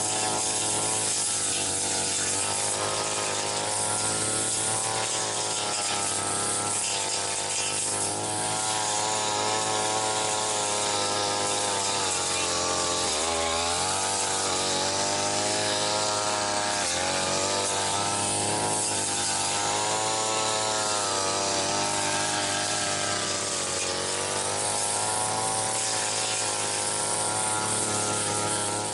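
Brush cutter engine running at high throttle while the spinning blade cuts through dense weeds. Its pitch wavers and dips briefly a couple of times as the blade is loaded by the weeds.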